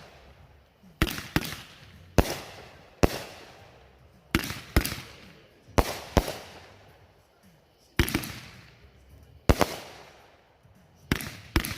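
TNT Covert Mission consumer firework cake firing its shots: about a dozen sharp bangs at uneven intervals, some in quick pairs, each trailing off in a fading tail.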